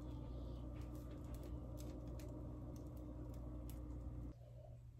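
Faint, scattered ticks and pops of baghrir batter cooking in a nonstick frying pan as its bubbles burst into holes. Under them runs a steady low hum that cuts off shortly before the end.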